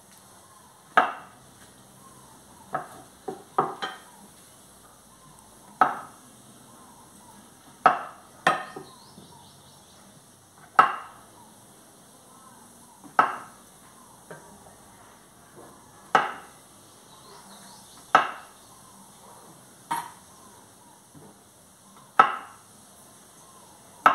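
Kitchen knife slicing through raw white mushrooms and knocking on a wooden cutting board, one sharp tap about every two seconds, with a few quicker taps in a cluster near the start.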